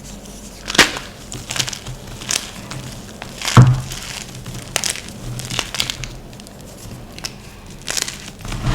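Gym chalk being crushed by hand, giving irregular sharp crunches and crackles. The loudest come about a second in and again about three and a half seconds in.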